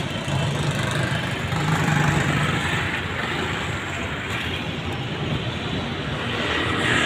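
Urban street traffic: motor vehicles passing with their engines running, a steady traffic noise that swells briefly about two seconds in.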